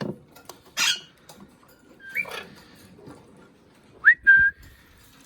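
Sun conure calling: a harsh screech about a second in, a shorter squawk near two seconds, and a loud whistled note near four seconds that rises sharply, then holds. The calls come from a conure that is agitated at its nest after one of its chicks was taken out.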